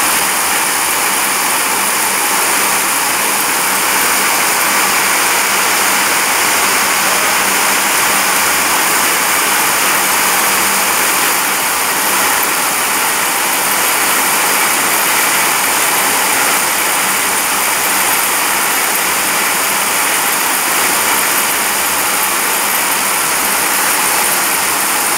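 Maruti Plastotech ring twister (yarn doubling machine) running, its many spindles spinning at speed in a loud, steady rushing whir, mostly high-pitched, with a faint low hum beneath.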